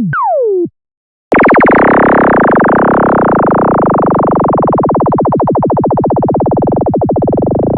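Synthesized sci-fi sound effects: two quick falling laser zaps at the start, a short silence, then just over a second in a loud, rapidly pulsing electronic drone that starts suddenly and keeps going, slowly growing duller.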